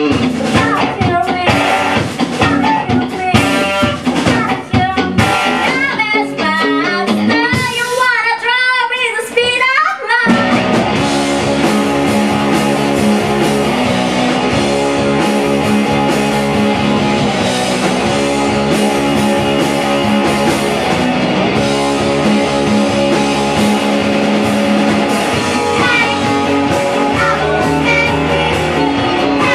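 Rock band playing, with electric guitar and drum kit and a voice singing. About ten seconds in, after a stretch of wavering, sliding notes, the full band comes in together and plays on steadily.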